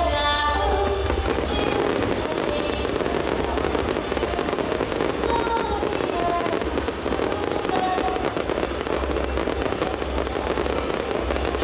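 Aerial fireworks bursting in rapid succession, a dense crackle over deep booms, with the show's accompanying music underneath, clearest at the start.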